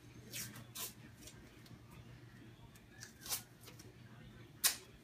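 White athletic tape ripping as it is pulled and torn from the roll during ankle taping: a handful of short, sharp rips, the loudest near the end.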